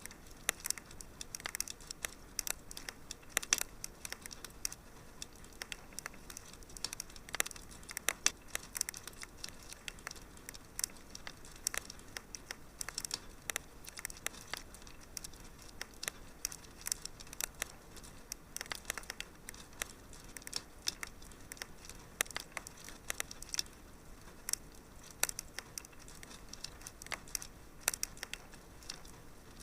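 Wood fire in a fireplace crackling: a soft steady hiss with frequent sharp, irregular pops and snaps.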